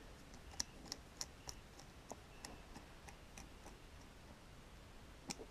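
Faint, light clicks and ticks from hand work on a tire valve stem. They come irregularly, about two a second at first, then thin out, with one last click near the end.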